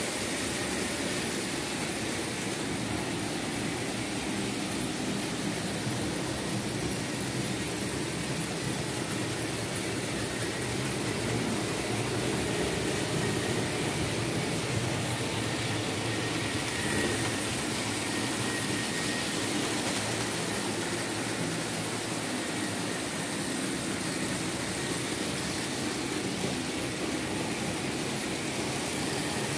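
Märklin H0 model trains running on the layout: a steady whir of the locomotive motor with the running noise of wheels on the track.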